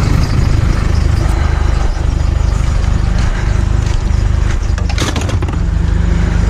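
Steady low rumble of a motor vehicle engine running, with a brief sharp clatter about five seconds in.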